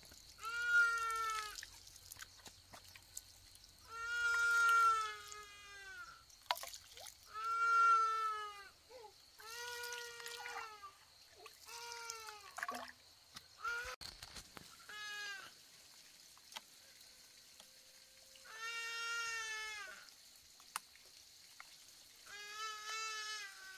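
An animal calling over and over: about eight drawn-out, high-pitched calls, each a second or two long and a few seconds apart. Water runs from a bamboo tube onto garden soil in between.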